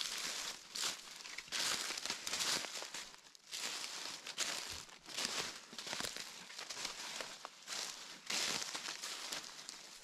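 Footsteps rustling through dry leaf litter on a forest floor, about one step a second, with small twigs and leaves crackling underfoot.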